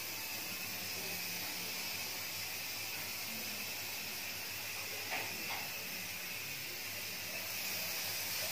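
Aerosol spray can hissing steadily as clear paint is sprayed onto a bicycle rim, with two brief taps about five seconds in.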